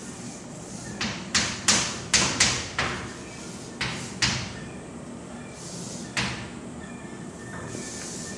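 Short scratchy writing strokes, about ten of them, mostly bunched between one and four seconds in, with one more about six seconds in, over a steady low room hum.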